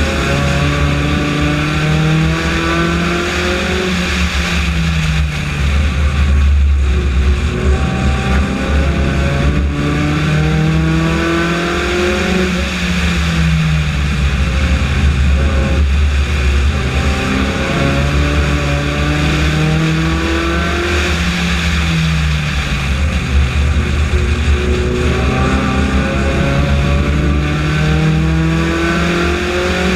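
Honda-built four-cylinder F4-class race car engine heard from onboard, revving up along each straight and dropping as the driver lifts for the turns of the oval, about four times. Under it runs a steady low rumble of road and wind noise.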